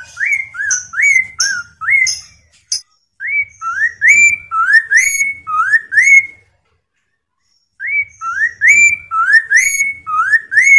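Poksay Mandarin laughingthrush singing: loud rising whistled notes, two to three a second, in three quick runs with short pauses between.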